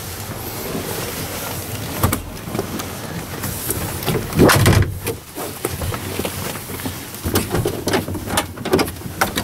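Handling noises from the Unimog cab's door fittings over a steady background noise: a click about two seconds in, a heavier thump about four and a half seconds in as the door grab handle is gripped, and a run of small clicks and knocks near the end as fingers work the door-panel pocket.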